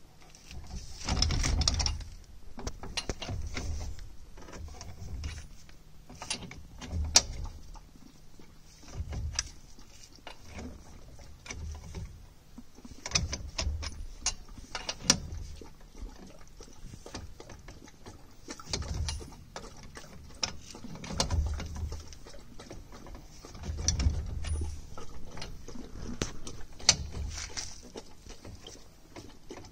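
Wheel-spacer nuts being tightened on a drum-brake hub with a long-handled socket wrench: repeated bursts of metallic clicking and clinking with dull knocks.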